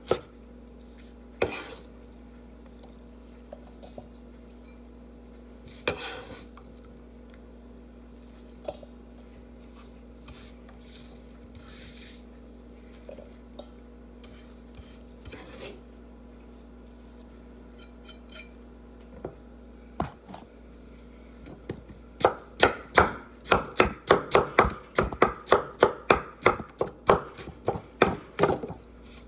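Kitchen knife chopping produce on a wooden cutting board. A few scattered knocks come through most of the stretch, then from about three-quarters of the way in there is steady, rapid chopping at about three strokes a second.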